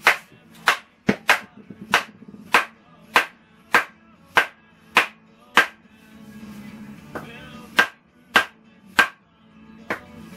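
Background music with a sharp, clap-like beat, about three beats every two seconds, that drops out briefly in the middle before resuming.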